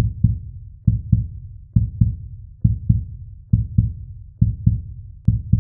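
Heartbeat sound effect: low double thumps, lub-dub, repeating a little more than once a second, seven beats in all.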